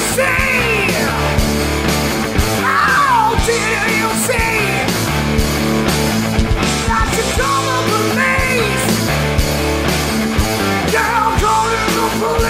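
Rock music with a steady drum beat, playing as closing music.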